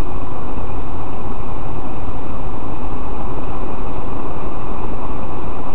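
Steady road and engine noise inside the cabin of a moving taxi, loud and unchanging throughout.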